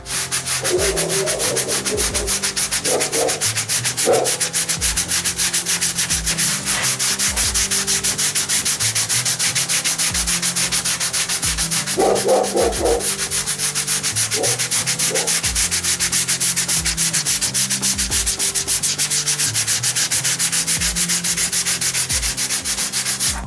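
120-grit sandpaper on a large hand sanding block rubbing over cured liquid body filler on a car fender, in steady, rhythmic back-and-forth strokes. The filler is being shaped along the edge of a body line.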